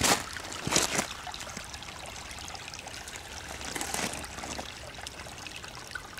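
Runoff water trickling steadily through a flood-eroded gravel washout rut, with a couple of footsteps on gravel and wet leaves in the first second.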